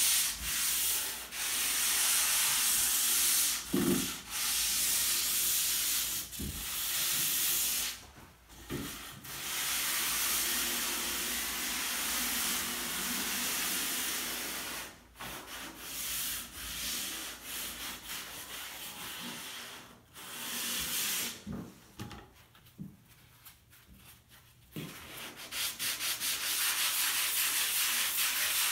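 Dried drywall joint compound being hand-sanded for the finish sanding: a steady scratchy rasp of abrasive strokes over the wall in long spells, broken by a few brief pauses and a quieter stretch about three quarters of the way through.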